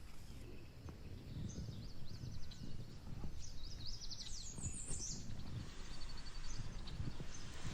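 Birds chirping, with a flurry of quick, high, repeated calls about four seconds in, over a steady low rumbling noise.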